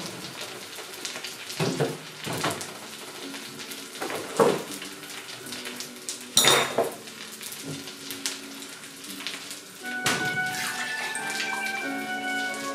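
Kitchen handling sounds: a plastic measuring jug and a carton of wine knocked and set down on a wooden worktop, several sharp knocks with the loudest just past the middle, then liquid pouring near the end. A pan of fish fingers frying in the background.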